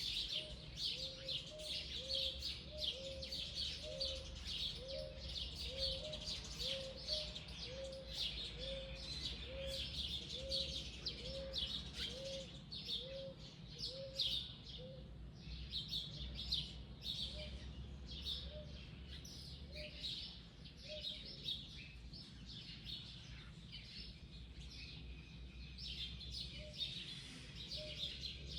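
Wild birds chirping in a dense, overlapping chorus of short high notes. Under it, a lower call repeats about twice a second for the first half, then sounds only now and then. A low, steady hum runs beneath.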